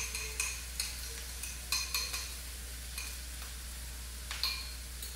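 Eggs being beaten in a bowl: a utensil clinking against the bowl's side in irregular, ringing taps, over the faint steady sizzle of cauliflower rice frying in a pan.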